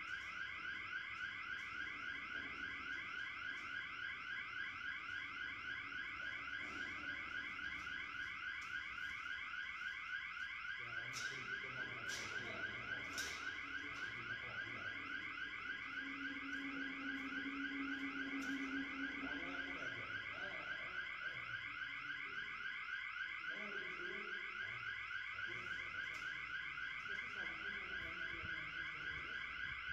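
Electronic alarm sounder giving a continuous, quickly repeating rising sweep while a large sliding safety door closes. It is the warning that goes with the door closing. A few sharp clicks come about halfway through, and a low steady hum joins for a few seconds soon after.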